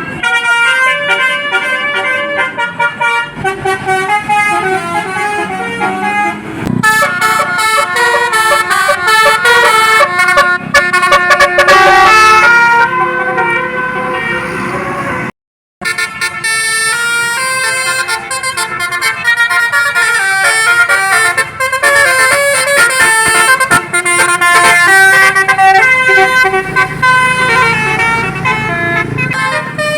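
Bus 'telolet' multi-tone air horns playing melodic jingles, the notes changing in quick steps. The sound cuts out briefly about halfway, then more horn tunes follow.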